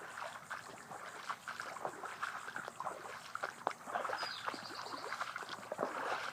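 Water running, trickling and splashing over flooded ground, with a short high chirp about four seconds in.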